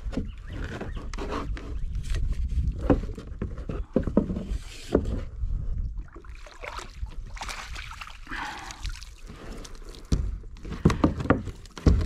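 Water splashing and sloshing beside a plastic kayak as a small queenfish is reeled alongside and scooped into a landing net. Scattered knocks and rustles of gear handling run through it.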